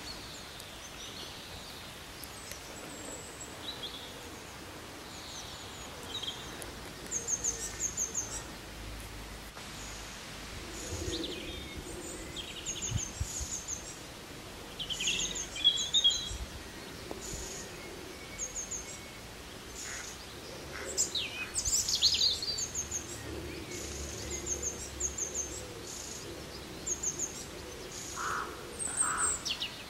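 Birds singing and calling: repeated short high chirps in twos and threes and a few brief trills, over a steady background hiss.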